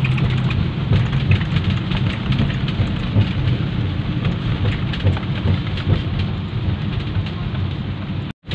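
Rain pattering on a vehicle's windshield and roof, heard from inside the cabin over the low rumble of the moving vehicle. The sound cuts out for an instant near the end.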